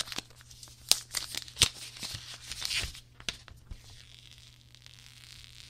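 Clear protective plastic film being peeled off a new phone, crackling and crinkling. There are sharp crackles about a second in and again a moment later, then a softer, steadier peeling hiss.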